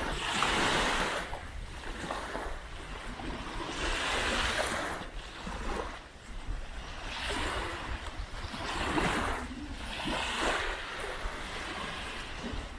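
Small waves washing onto a sandy beach, each swelling and fading every couple of seconds, with a low rumble of wind on the microphone.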